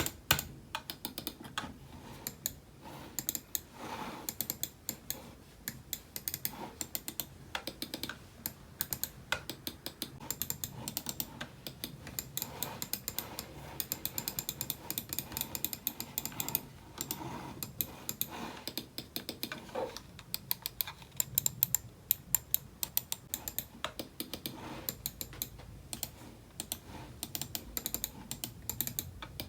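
Typing on a computer keyboard: a rapid, steady run of key clicks, several keystrokes a second, with brief pauses.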